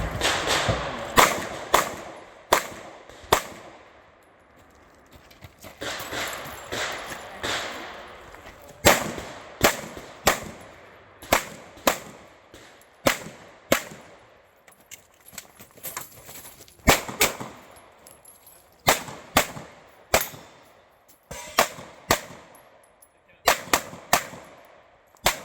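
A run of single gunshots from a firearm at a shooting stage, fired at an unhurried pace: four shots in the first few seconds, a pause of about five seconds, then about twenty more, often in quick pairs, each with a short echo.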